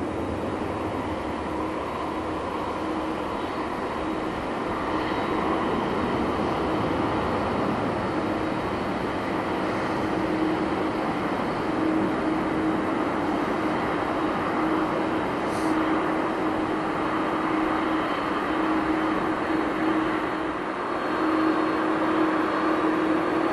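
Boeing 747-400's four General Electric CF6-80C2 turbofans running at taxi power, a steady jet rumble and hiss with a constant low hum through it. A short sharp click sounds once about two-thirds of the way through.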